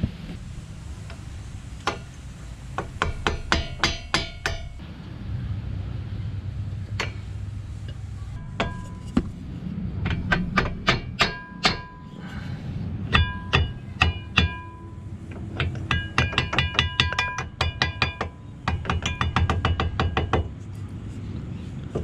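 A mallet tapping a new brake pad's steel backing plate into the rear caliper bracket: clusters of quick taps, several a second, with short metallic rings after many strokes. This is the pad being driven in until it seats flat against the rotor.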